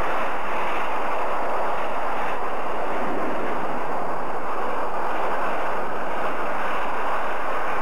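A loud, steady rushing noise from a television sound-effects track, unchanging in level.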